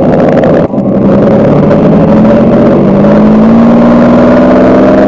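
Scale-sound board in an RC P-51 Mustang playing a recording of a full-size P-51's V-12 engine through its amplifier and speaker, picked up by a microphone inside the model's cockpit. The engine note dips briefly just under a second in, then runs on and rises steadily in pitch.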